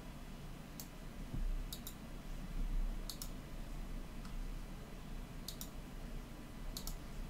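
Computer mouse clicking: five short clicks, most of them quick double clicks, spaced a second or so apart, with a couple of low bumps in between.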